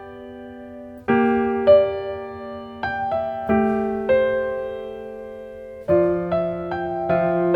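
Slow, calm piano music. Chords are struck one after another, each ringing out and fading before the next, after a near-pause in the first second.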